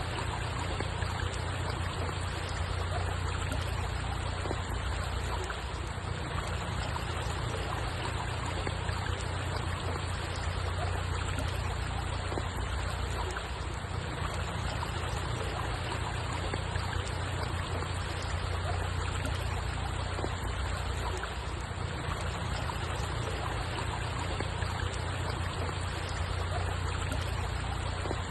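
Water flowing and trickling steadily with an even rush and a low rumble underneath; nothing starts or stops.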